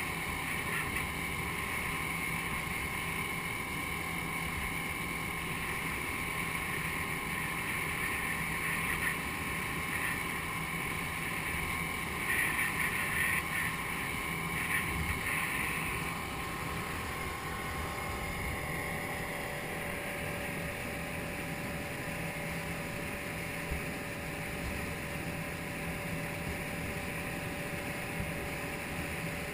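A 100 hp outboard motor driving a rigid inflatable boat at speed: a steady engine note over the rush of the hull through the water. About halfway through, the higher part of the engine note drops away.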